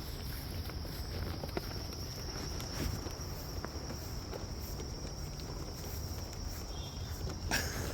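Footsteps walking outdoors, light scattered steps over a steady high-pitched hum.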